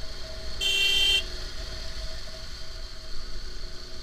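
A vehicle horn honks once, a short blast of about half a second near the start, over the steady running of a motorcycle engine and low wind rumble on the move.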